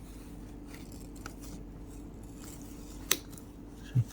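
Plastic catches on a vending machine slot motor's gearbox housing being pushed to release it, with faint handling scrapes and one sharp plastic click about three seconds in. A steady low hum runs underneath.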